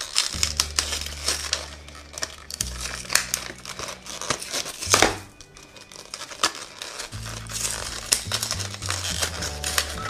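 Stiff clear plastic blister packaging crinkling and crackling as it is handled and opened, with one louder crackle about halfway through. Background music with a steady low bass plays underneath.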